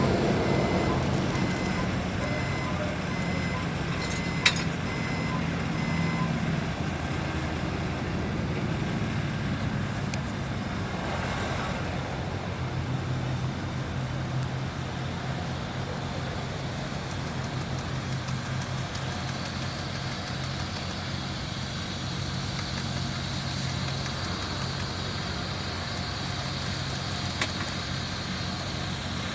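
Heavy diesel engine of a ready-mix concrete truck running steadily. A reversing alarm beeps through the first several seconds, and there is a single sharp click about four and a half seconds in.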